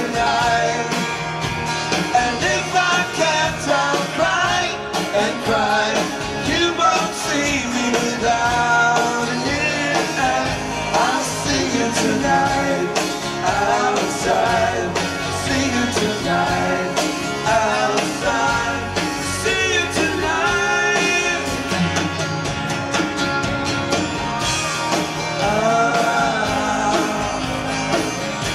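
Live rock band performing a song: a man singing lead over strummed acoustic guitar and electric bass.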